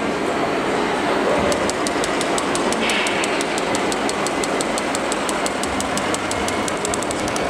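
Steady mechanical running noise with a rapid, even ticking, about seven ticks a second, that starts about a second and a half in.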